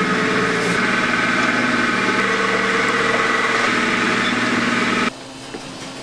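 Fish cake production machinery running with a steady mechanical hum and whine made of several constant tones. It cuts off sharply about five seconds in, leaving a much quieter background.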